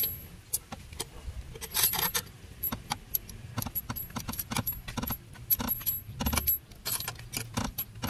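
Car scissor jack being cranked down with its metal crank handle: irregular metallic clicking and rattling, several knocks a second, as the jack lowers the car.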